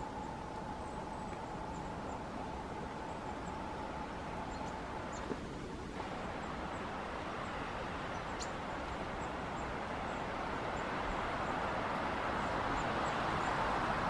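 Wind rushing steadily through the forest trees, swelling louder toward the end, with a few faint high ticks.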